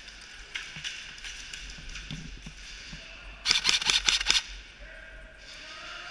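Airsoft gun firing a rapid burst lasting about a second, starting a little past halfway, with scattered fainter shots and pops around it.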